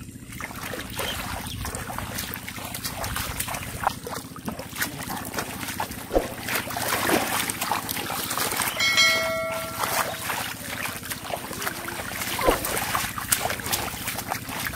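Shallow muddy floodwater splashing and sloshing as hands and knees churn through it while grabbing for catfish, many quick splashes one after another. A short held tone sounds for about a second, about nine seconds in.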